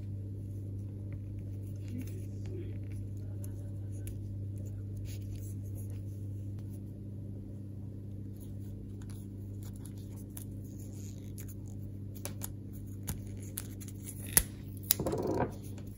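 A steady low hum under light clicks and crackles of hands handling wire, string and a roll of PVC electrical tape, with a few sharper clicks near the end.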